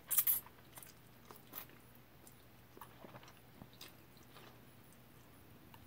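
A person slurping and chewing instant ramen noodles. There is a short, louder slurp right at the start, then faint chewing and small mouth clicks.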